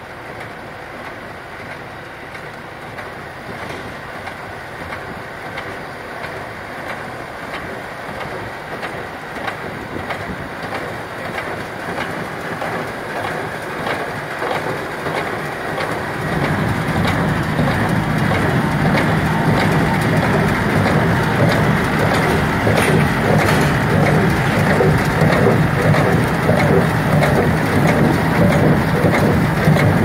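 New Holland 570 small square baler working behind a tractor, picking up hay and packing it in the bale chamber with a rhythmic mechanical clatter over the tractor's engine. The sound grows steadily louder and jumps about halfway through as the baler comes close.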